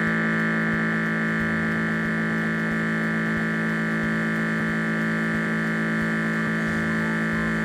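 One unbroken, steady electronic buzzing tone, the sound effect of a toy blood pressure monitor taking a reading.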